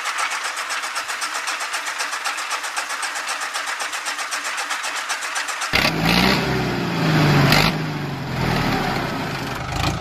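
Small motor of a handmade miniature flour mill running with a rapid, even buzzing pulse as it grinds wheat. About six seconds in, a louder, lower tractor-engine sound with a wavering pitch takes over.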